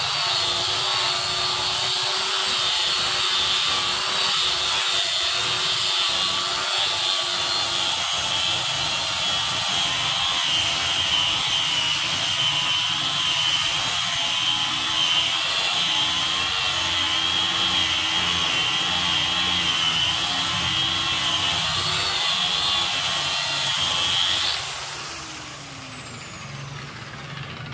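Handheld electric sanding tool running steadily with a high whine as it sands a wooden door frame, the pitch wavering slightly under changing pressure. Near the end it is switched off and its whine falls away as the motor spins down.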